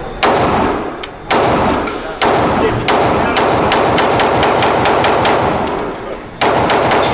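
Pistol shots fired in an indoor firing range, about a dozen and a half in all: a few spaced shots at first, then a fast string of about three a second, a short gap, and more shots near the end. Each crack rings and echoes off the range's walls, filling the gaps between shots.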